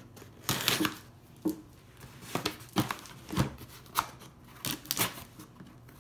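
Scissors slicing through the clear packing tape on a cardboard shipping box: a longer rasping cut about half a second in, then a series of short snips and scrapes against the cardboard.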